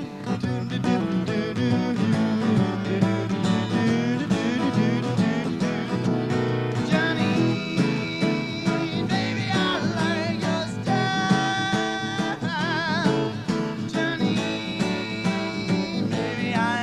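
Live acoustic guitar band music in an instrumental break: a steady strummed rhythm, with a lead line of held, wavering notes through the middle.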